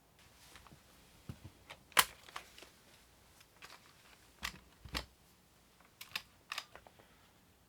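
Irregular clicks and taps on a Lenovo ThinkPad laptop, about fifteen in all and not a steady typing rhythm, with one sharp loud click about two seconds in.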